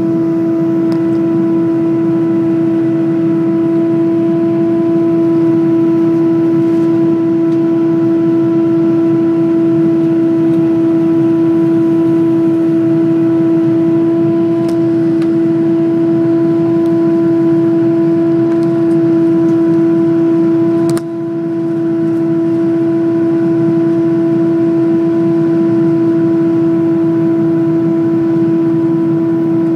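Loud steady hum inside the cabin of an Airbus A330-200 climbing after takeoff: one unwavering tone with fainter overtones over the rush of engine and airflow noise. A short click and dip in level about 21 seconds in.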